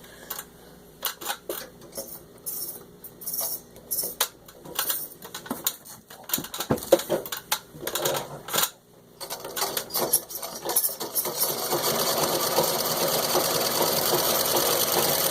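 Antique Singer 27 treadle sewing machine stitching through six layers of denim. For the first nine seconds there are irregular separate clicks and knocks. From about ten seconds in it runs steadily at an even stitching pace.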